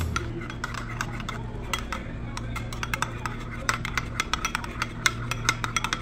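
A metal spoon stirring a thick sauce in a ceramic bowl: quick, irregular clicks and scrapes of the spoon against the bowl.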